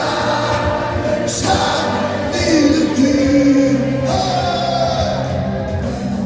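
A choir singing with instrumental accompaniment, in long held notes over a steady bass line that move to new notes every second or so.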